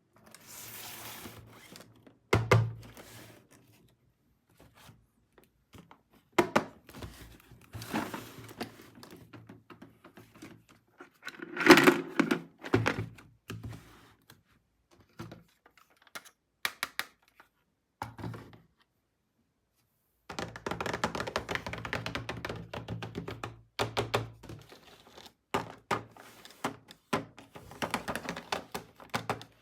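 Plastic toy tool-set pieces and packaging handled on a hard surface: scattered knocks, clicks and rattles, with a stretch of quick rattling from about 20 to 24 seconds in.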